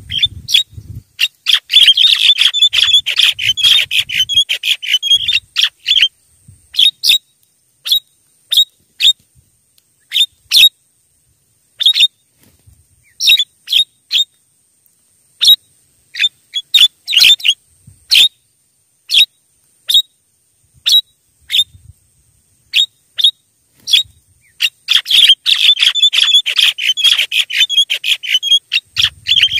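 Javan mynas calling: dense runs of quick, sharp chattering notes about a second in and again near the end, with scattered single calls between. This is a lure recording played to call in wild Javan mynas.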